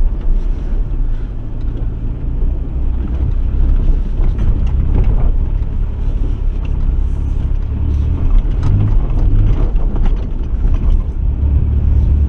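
A vehicle driving slowly over a rough, snowy farm track, heard from inside the cab: a steady low engine rumble with scattered knocks and rattles as it bounces over the uneven ground.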